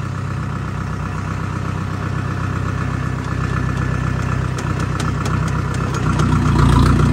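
A vehicle engine running steadily at a low pitch, growing louder near the end, with a short run of light clicks a little past the middle.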